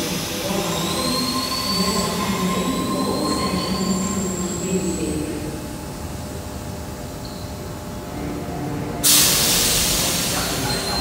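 Sydney Trains Tangara electric train standing at an underground platform, its equipment humming with faint high whines that rise slowly. About nine seconds in comes a sudden loud hiss of released air, which eases off as the train gets ready to pull away.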